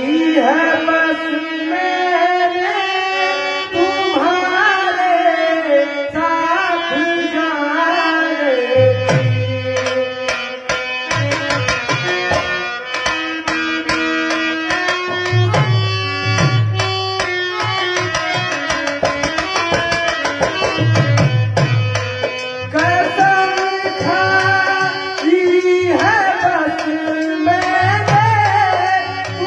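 Ramlila stage music: a singer with hand-drum accompaniment. The voice sings for the first several seconds and again from about two-thirds of the way in. In between, the drums play a fast stretch with repeated deep, booming strokes.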